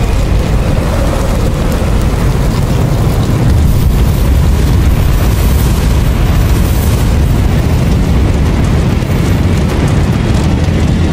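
Loud, steady low rumble of a film sound effect for an asteroid-impact fireball and a burning forest, with a dense hiss of fire over it.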